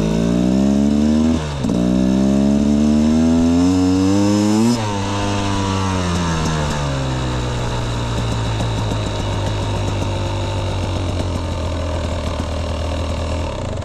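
Beta Xtrainer two-stroke dirt bike engine accelerating in two rising pulls with a short break about a second and a half in. The throttle closes near five seconds, the revs fall away, and the engine runs steadily at low revs before it cuts out just before the end.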